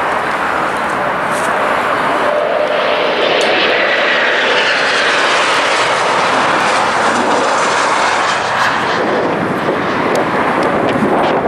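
Embraer E190 twin-turbofan airliner passing low on final approach and landing: steady jet engine noise that swells as it goes by, with a thin whine around the middle. The sound turns lower in pitch as it touches down and rolls away down the runway.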